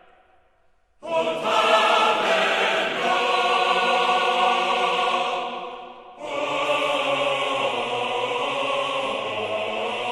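Music of long held chords: one chord enters about a second in and fades away, and a second starts about six seconds in and holds steady to the end.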